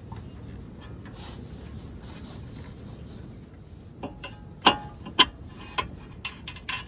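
Outer tie rod end being screwed by hand onto the threaded inner tie rod: faint handling and rubbing, then about six sharp light metal clicks and knocks in the last three seconds.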